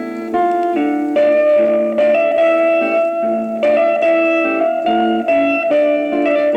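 Solo electric guitar playing a slow Japanese popular-song melody in held single notes over a guitar accompaniment, played back from a 1960s flexi-disc record.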